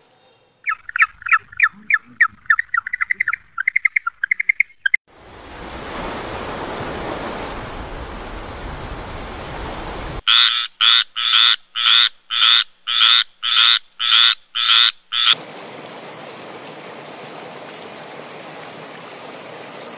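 A tree frog calling: a run of about a dozen loud croaks at an even pace, a little over two a second. Before it comes a faster series of calls that rises in pitch, then a few seconds of rushing noise; a steady hiss follows the croaks.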